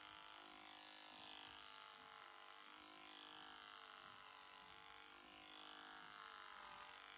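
Cordless electric horse clipper running with a faint, steady hum as it is drawn over the short hair on a horse's jaw and cheek.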